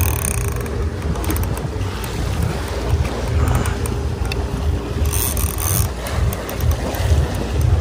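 Wind buffeting the microphone on a boat at sea, with a faint steady hum underneath and a short hiss about five seconds in.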